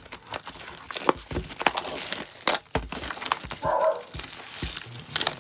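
Cellophane shrink-wrap crinkling and crackling as it is peeled off a cardboard box. A dog vocalizes briefly about three and a half seconds in.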